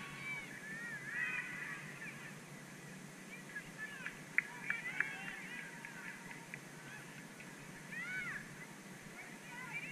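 Geese honking in repeated short calls that rise and fall in pitch, some in overlapping clusters, with a few brief sharp sounds near the middle.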